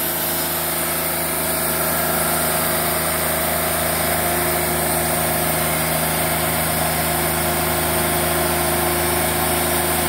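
The 35-horsepower diesel engine of a Wood-Mizer LT40 portable sawmill running at a constant speed, an even hum that neither rises nor falls.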